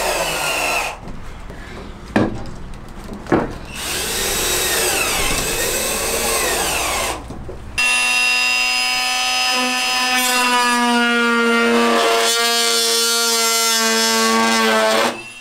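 Cordless drill driving self-drilling screws through plywood ribs into the van's steel frame, its motor speeding up and slowing, with two sharp knocks. About eight seconds in, a corded power drill starts and runs at steady high speed with a steady whine, stopping just before the end.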